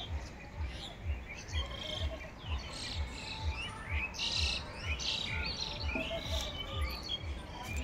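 Several small birds chirping and calling in quick short notes over one another. Underneath runs an even low thudding about twice a second from an unseen source.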